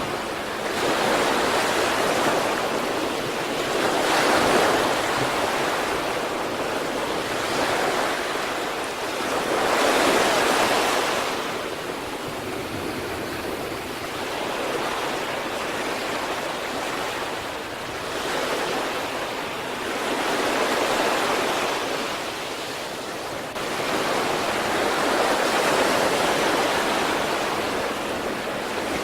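Sea surf: waves breaking and washing in, the rush swelling and falling away every few seconds.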